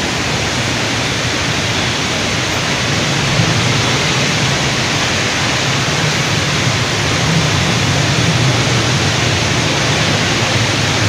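Heavy rain pouring down in a dense, steady hiss, with a low rumble underneath.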